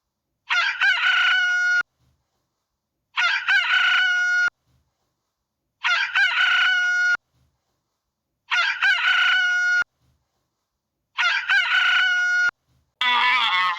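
Rooster crowing five times, the same crow repeated at even spacing with silence between. A different animal call begins near the end.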